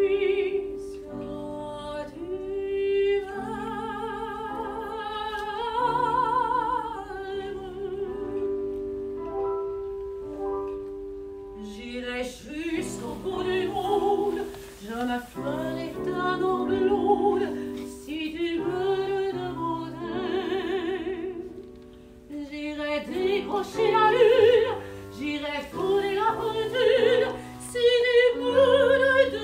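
A classically trained soprano sings a French popular song with wide vibrato, accompanied on a digital piano.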